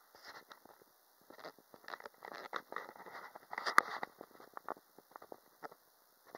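Crackling and rattling from a camera microphone with its holes plugged by adhesive, set off as the camera is handled: a dense run of irregular clicks, busiest in the middle, with one sharp crack a little before four seconds in.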